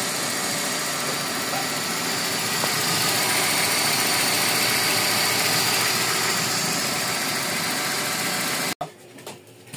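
Toyota 4A-FE 16-valve inline-four idling with a steady hiss of air from a vacuum leak that has not yet been found. The sound cuts off suddenly near the end.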